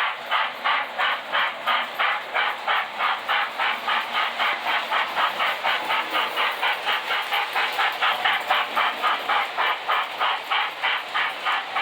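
Lionel model Southern Pacific GS-2 Daylight steam locomotive chuffing as it runs, a steady rhythm of hissing steam-exhaust beats at about four a second, speeding up slightly.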